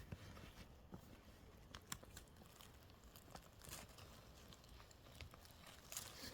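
Faint, scattered crunches and snaps of twigs and dry forest-floor litter, a few sharp clicks spread out over the seconds with a quiet hiss between them.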